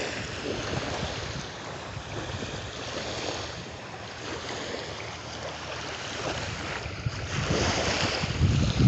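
Small waves washing on a beach, with wind buffeting the microphone; the wind rumble gusts louder near the end.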